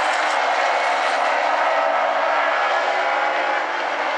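Baby Grand stock cars racing past at speed, their engines running hard in a steady, dense drone.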